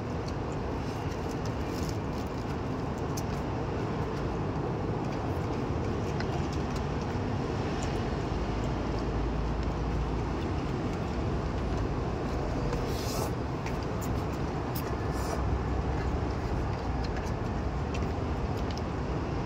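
Steady city street traffic noise. A low rumble swells about halfway through, and a few faint clicks sound now and then.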